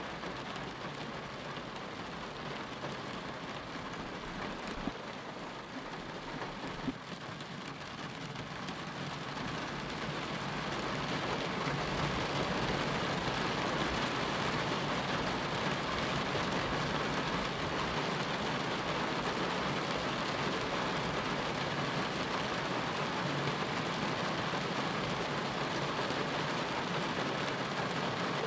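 Steady rain falling, growing heavier about ten seconds in and then holding steady. Two small clicks a few seconds in.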